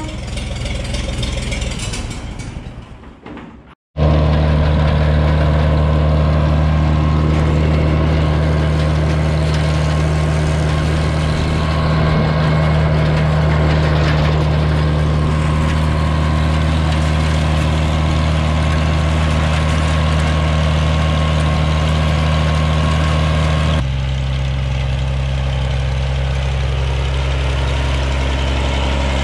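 Old tractor engine running at a steady speed. It fades out to a moment of silence about four seconds in, comes back suddenly at full level, and about twenty seconds later steps to a slightly lower, quieter note.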